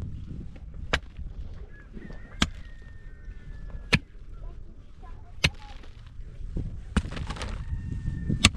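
Sharp blows of a hand tool struck at an even, unhurried pace, six strikes about a second and a half apart, over a low rumble.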